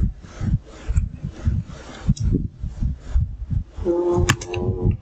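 Dull, muffled thuds at an uneven pace from keys being struck on a computer keyboard, carried through the desk to the microphone. About four seconds in there is a short hummed voice sound and a sharp click.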